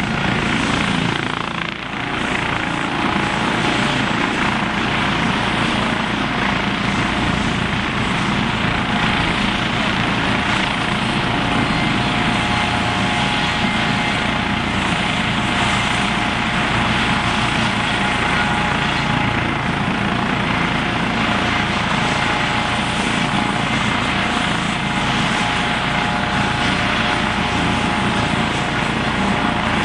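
Eurocopter EC155 twin-turbine helicopter running loud and steady: a constant turbine whine over fast rotor pulsing.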